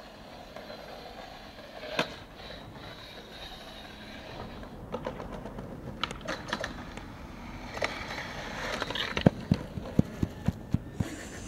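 Skateboard rolling over rough pavement, its wheels clicking over joints. There is a sharp clack about two seconds in, and near the end a run of evenly spaced clicks, about three a second.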